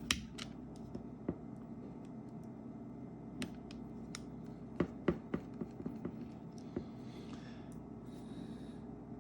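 Scattered light clicks and taps of a small screwdriver and tiny parts handled at the bottom of an iPhone, where the screws by the charging port go back in, with two short scratchy scrapes about seven and eight seconds in, over a faint steady hum.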